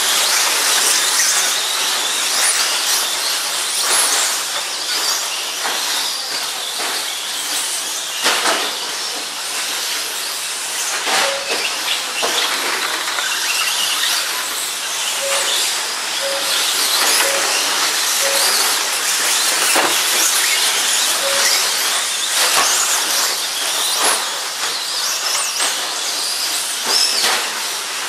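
1/10-scale 2WD short-course RC trucks racing on a dirt track: a constant high-pitched whine and hiss from their electric motors, gears and tyres. Sharp knocks come every few seconds, and a run of short beeps sounds in the second half.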